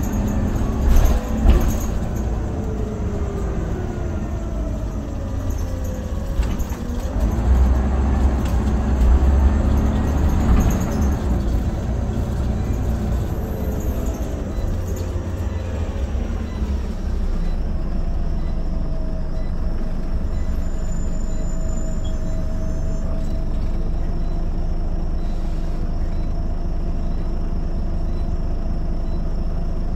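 Scania OmniCity single-deck bus heard from inside the saloon: a diesel engine rumble with drivetrain whine that rises and falls in pitch as the bus speeds up and slows. About halfway through, it settles into a steadier hum.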